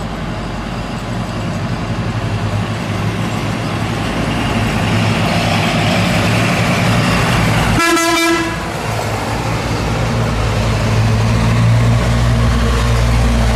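Diesel engines of old heavy lorries running as the trucks drive past one after another, growing louder near the end. About eight seconds in, a truck's horn gives one short toot.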